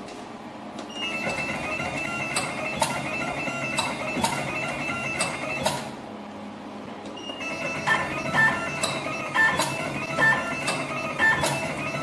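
Automatic wire cutting, stripping and twisting machine running a cycle: a steady high motor whine with regular sharp clicks about twice a second. It pauses briefly about six seconds in, then starts again with the clicks coming more often.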